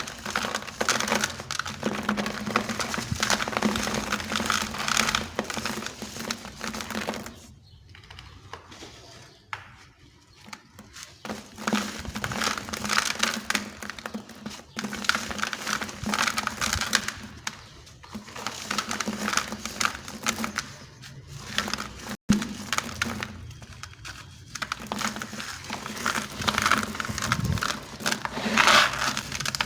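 Dry, dusty sand-cement blocks being crushed and crumbled, giving dense gritty crunching and crackling in uneven bursts. There is a lull of a few seconds around the first third, and the crunching is loudest again near the end.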